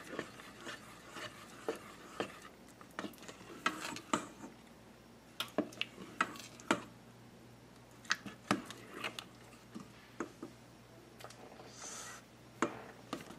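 Silicone spatula stirring thick cornmeal porridge in a stainless steel pot, making faint, irregular scrapes and taps against the pot.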